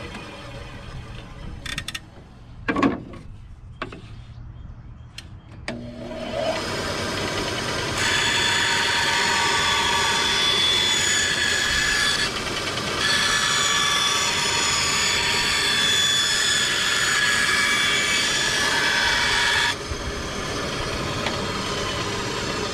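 Electric power saw ripping a strip off a wooden shelf: after a few knocks the saw's motor starts about six seconds in, runs steadily with a whine while cutting, dips briefly near the middle, and cuts off a few seconds before the end.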